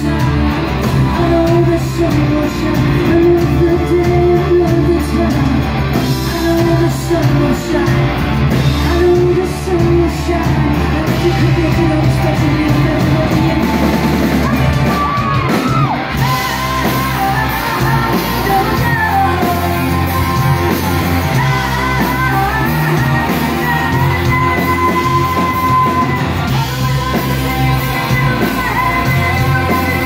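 Live band playing a rock song: a woman singing lead over strummed acoustic guitar, bass guitar and keyboards, heard loud in a club hall.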